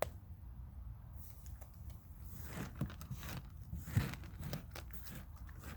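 Raccoons crunching and chewing hard food: faint, irregular crunches and clicks, with a sharper click at the start and another about four seconds in.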